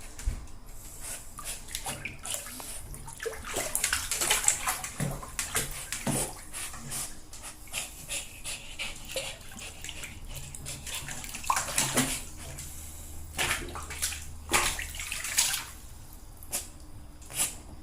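A dog splashing about in a bathtub of water, with irregular splashes and sloshing.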